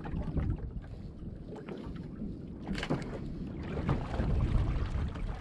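Wind rumbling on the microphone and water moving against the hull of a small boat at anchor in a swell, with a sharp knock or splash about three seconds in.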